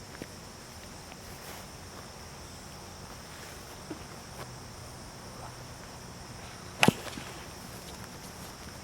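One sharp crack of a wiffle ball being struck, about seven seconds in, over a steady high chirring of insects.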